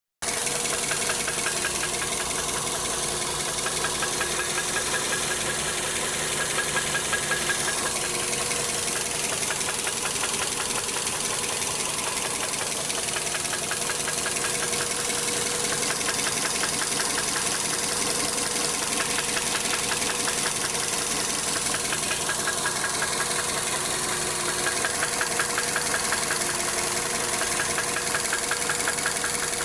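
Engine running steadily with a fast, even knocking from inside the block, the sound of spun crankshaft bearing shells.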